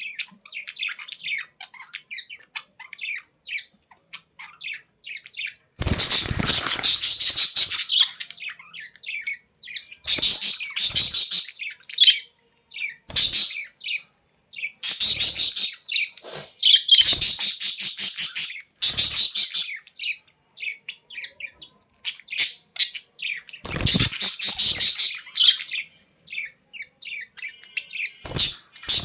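A group of budgerigars chattering and chirping in quick trills. Several louder, denser stretches of calls come and go every few seconds, some with a rough low rumble beneath them.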